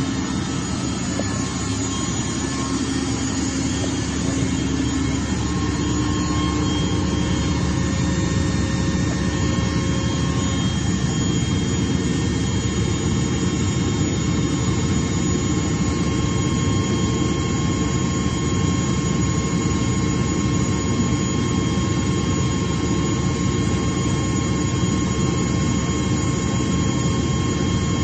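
Atlas Copco ZR160 VSD FF oil-free rotary screw air compressor running, a steady machine drone with several steady whining tones on top, growing a little louder over the first few seconds.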